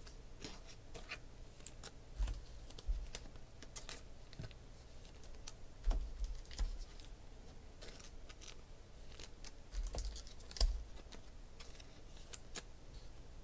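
Trading cards being handled and sorted on a table: irregular light clicks and taps of card edges, with a few soft thumps.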